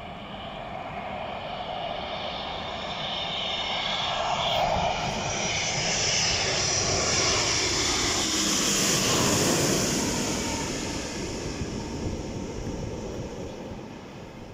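Twin-engine jet airliner on landing approach passing low overhead. Its engine noise and high whine build to a peak about seven to ten seconds in, drop in pitch as it goes over, then fade as it descends toward the runway.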